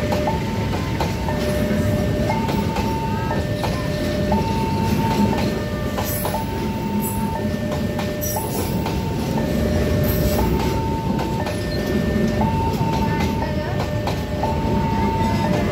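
Passenger train of stainless-steel coaches rolling past at a level crossing, with a steady rumble of wheels on rail. Over it the crossing's warning alarm keeps sounding, alternating between a high and a low tone.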